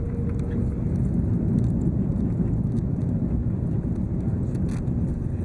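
Steady deep rumble inside the cabin of an Airbus A330-200 airliner as it lands, with a few faint clicks.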